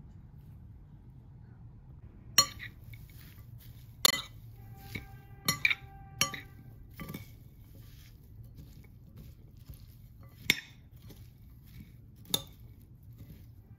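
Metal spoon clinking against a white ceramic bowl while stirring a chopped vegetable and bean burger mixture: about eight sharp, irregular clinks, several of them ringing briefly.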